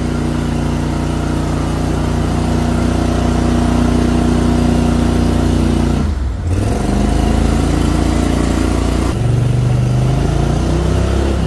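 Boat motor running steadily under load while the boat is held against the strong current through an open water-control gate. Its speed drops off briefly about six seconds in, then picks up again at a different pitch about nine seconds in.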